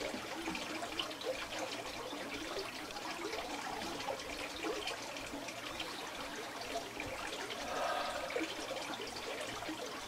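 Water trickling and running steadily through the stone basin and channels of a small village wash-house.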